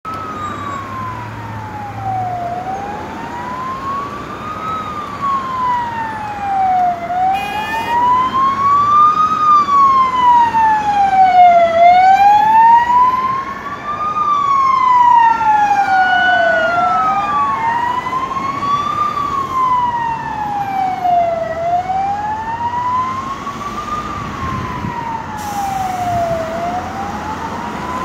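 Police car siren on a slow wail, rising and falling about every four and a half seconds. It grows louder toward a peak about ten to thirteen seconds in, then eases off, over steady heavy motorway traffic. A second siren overlaps briefly in the middle.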